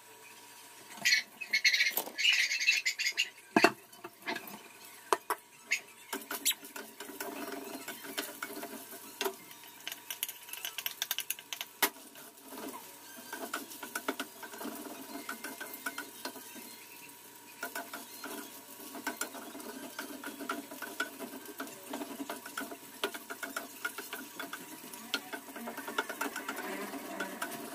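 Spatula scraping and clicking against a steel frying pan while vegetables are stir-fried, in fast irregular taps. A louder hiss lasts about two seconds near the start.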